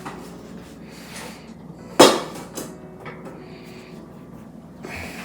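Metal pots and pans clanking as they are taken out of an oven, with one loud clank about two seconds in and a few lighter knocks after it.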